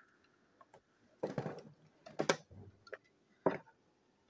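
Two small plastic toy train engines being handled in the hands: a short scuffle about a second in, then a few sharp plastic clicks and knocks as they are picked up and held side by side.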